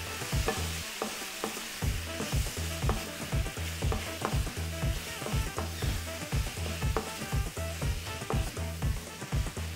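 Tempeh and onion sizzling in a frying pan while being stirred, with repeated clicks and scrapes of the utensil against the pan.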